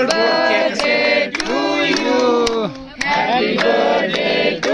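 A group of young voices singing a birthday song together in long held notes, with sharp claps cutting in now and then.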